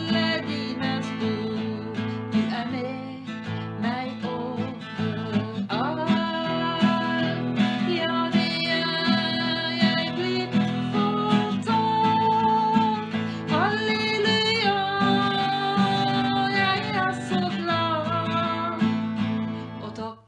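Music: an instrumental passage of a worship song, with strummed acoustic guitar under a melodic lead line that slides between held notes.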